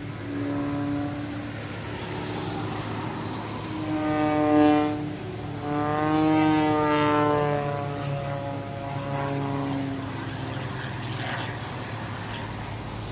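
Aerobatic airplane's engine passing overhead: a pitched drone that swells twice, then sinks slightly in pitch as it fades away.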